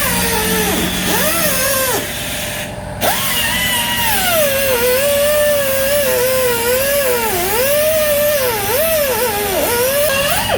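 Handheld power cutoff tool cutting through the seized carrier-bearing mounting studs. Its whine keeps sagging and recovering in pitch as the wheel bites under load. It stops briefly about two seconds in and starts again about a second later.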